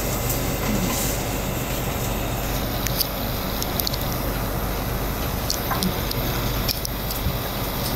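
Steady low hum and hiss of room noise, with a few faint, light clicks scattered through it.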